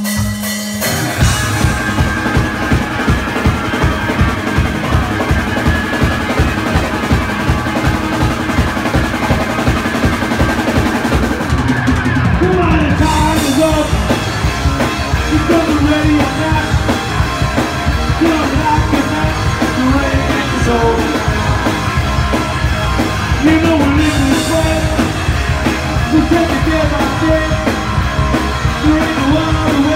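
Live rock and roll band playing loudly: electric guitar, bass guitar and drum kit come in together about a second in, and from about halfway a male voice sings over them.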